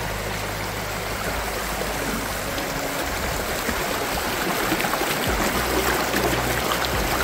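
Shallow, rocky stream running and splashing over stones, a little louder in the second half.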